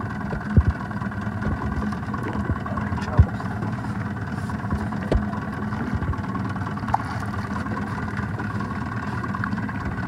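Small outboard motor idling steadily on an aluminium fishing boat, with a few short dull thumps about half a second, three seconds and five seconds in.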